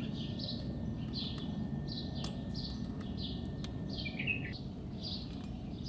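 Small birds chirping: short high chirps repeating about twice a second over a low steady background noise, with a few faint clicks.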